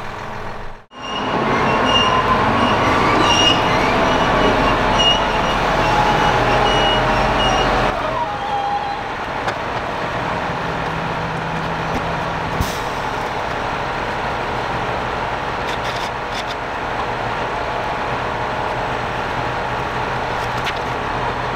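John Deere 6R-series tractor's diesel engine running, louder with a faint pitched whine for the first several seconds, then settling to a steadier, quieter run about eight seconds in.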